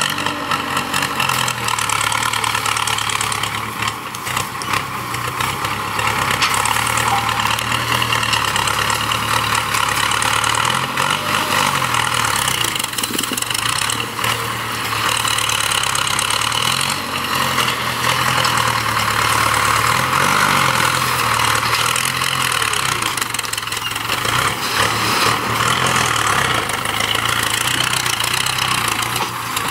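Ford 6610 tractor's four-cylinder diesel engine running steadily as the grab loader drives and works its hydraulic grab, the engine pitch rising and falling several times with the load.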